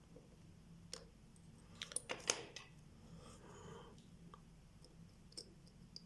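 Light clicks and taps of small metal watchmaker's tools on the parts of a Vostok Amphibia watch movement during disassembly: a quick cluster of several clicks about two seconds in, then a few scattered single ones.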